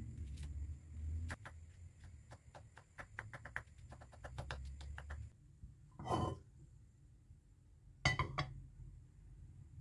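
Kitchen knife chopping a garlic clove on a wooden cutting board: quick, even taps, about three or four a second, for about five seconds. A brief scrape follows, then a short clatter near the end.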